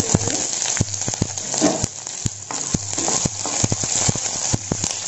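Chopped onions frying in hot mustard oil in a kadai: a steady sizzle with many sharp crackles throughout.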